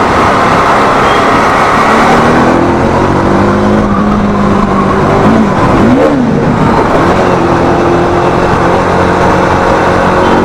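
Bajaj Dominar 400's single-cylinder engine running through an aftermarket Leo Vince exhaust while riding, under a steady rush of wind and road noise. Around five to six seconds in, the engine note dips and then rises again briefly.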